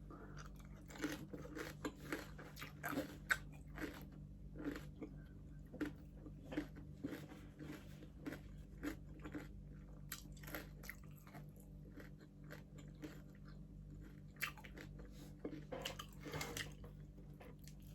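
Close-up chewing and biting of crispy pata, deep-fried pork leg, with irregular crunches of its crackling skin throughout, fairly quiet, over a steady low hum.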